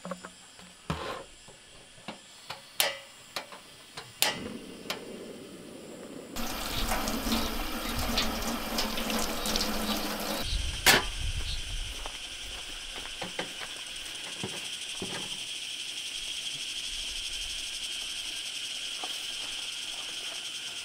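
Tap water gushing over a watermelon and splashing into a stainless steel sink, starting suddenly about six seconds in and stopping about four seconds later. Before it come scattered light knocks; after it a steady high insect chirring continues.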